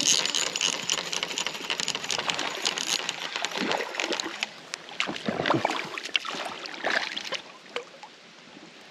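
Water splashing and sloshing as a hooked smallmouth bass thrashes at the surface while being reeled in and netted, with scattered sharp splashes that grow fainter in the second half.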